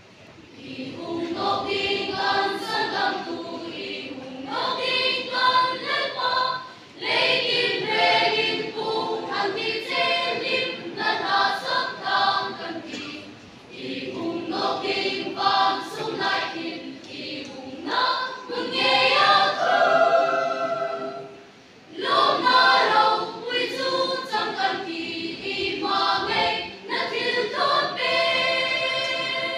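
Mixed choir of young men and women singing a church song together without instruments, in long phrases broken by short pauses for breath.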